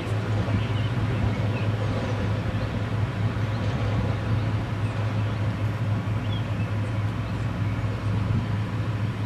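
Steady outdoor background noise with a constant low hum and a few faint, short high chirps.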